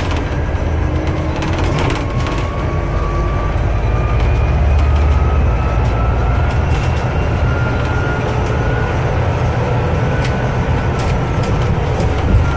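Interior noise of a Scania Citywide CNG city bus on the move: a steady deep engine and road rumble, a faint drivetrain whine rising slowly in pitch as the bus gathers speed, and scattered short rattles from the cabin.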